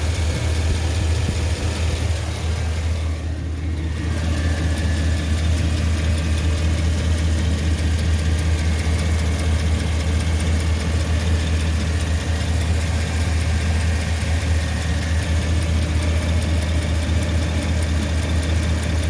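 2009 Chevy 2500HD's 6.0-litre gasoline V8 idling steadily with a fast, even tick from the engine. The owner traced it to a stuck exhaust lifter on cylinder 5, which caused a misfire there, along with a leaking exhaust flange gasket.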